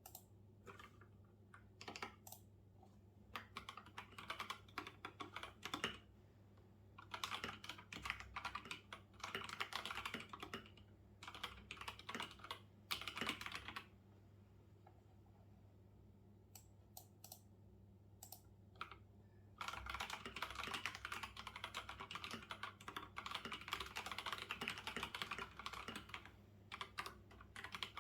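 Typing on a computer keyboard, in fast runs of key clicks broken by pauses, with a longer pause about halfway through before a long run near the end.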